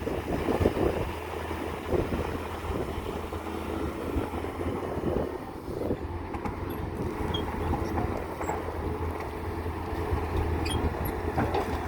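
Heavy earthmoving machine's diesel engine running steadily, with wind noise on the microphone.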